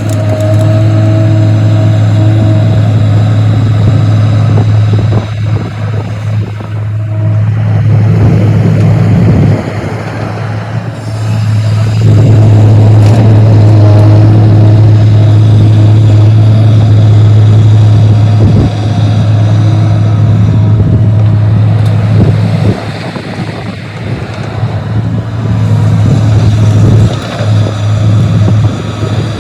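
Excavator running with a steady deep engine hum at one pitch. The hum fades out twice and comes back, with rattling noise over it.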